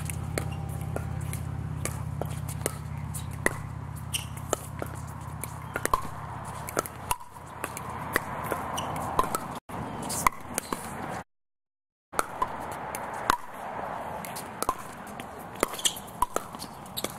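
Pickleball rally: repeated sharp pocks of paddles striking the hollow plastic ball, coming in quick, irregular runs. A low steady hum underneath stops about seven seconds in, and the sound cuts out for under a second past the middle.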